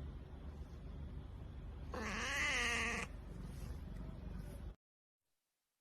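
A domestic cat gives one drawn-out meow with a wavering pitch, about a second long, beginning about two seconds in over a low steady hum. The sound cuts off abruptly near the end.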